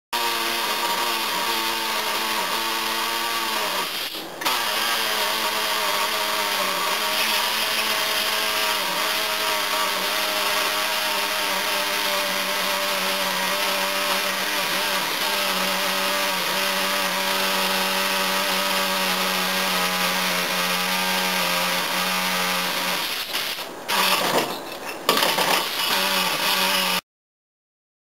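Air compressor's electric motor running with a steady hum, with a short dip about four seconds in and some uneven louder noise near the end.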